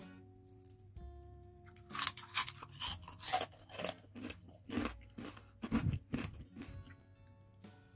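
Crispy fried potato chip bitten and chewed: a run of sharp crunches, about two a second, starting about two seconds in and stopping a little past six seconds, over soft background music.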